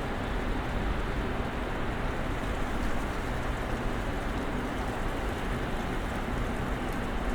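Steady snowstorm ambience: an even rushing noise with a deep rumble underneath and a faint low hum, unchanging throughout.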